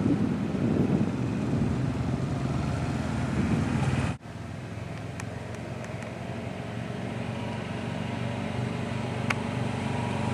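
Honda ATV engine running, heard first under a rough low rumble. After an abrupt break about four seconds in, there is a steady engine hum from a red Honda ATV driving up, growing a little louder near the end.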